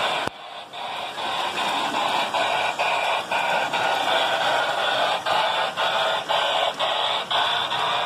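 The Lionel Electronic Sounds of Steam tender behind a New York Central 8206 4-6-4 Hudson toy train is making its loud electronic steam chuff, a hissing white-noise sound that beats about twice a second. There is a sharp click near the start.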